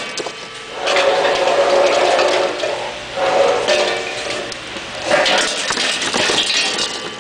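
Pine cones pouring out of a PMB-1 weighing scale's three-compartment metal weigh bucket and down its spout in three rushing, clattering bursts.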